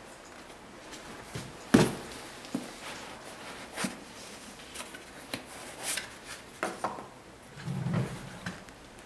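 Handling noise of an Air Jordan 13 sneaker being turned over in the hands: scattered soft knocks, taps and rustles, the sharpest about two seconds in. Near the end there is a low, muffled brushing as the shoe passes right by the microphone.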